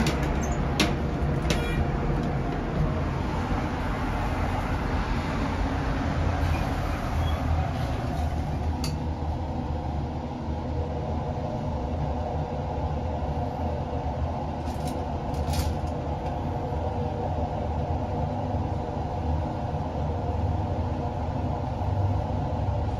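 Schindler passenger lift car travelling down, heard from inside the car: a steady low hum from the lift drive with a few short clicks about a second in and again later in the ride.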